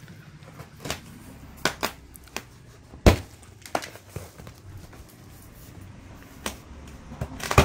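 Sharp knocks and crinkling from a parcel of saree stock being handled and opened, with a loud thump about three seconds in and another at the end.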